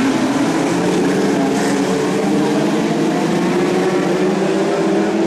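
Engines of several BriSCA F2 stock cars racing together: a loud, steady din of overlapping engine notes, their pitches shifting slightly as the cars go round.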